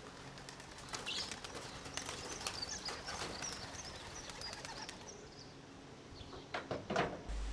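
Young racing pigeons being driven out of their loft: faint wing flapping and cooing, with a few sharp knocks from a stick tapped on the loft floor, and high bird chirps in the first half.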